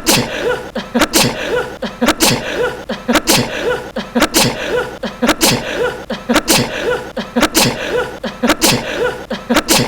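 A young man's short sneeze, the same one looped over and over, each a sharp burst with a brief voiced cry, repeating evenly about once a second.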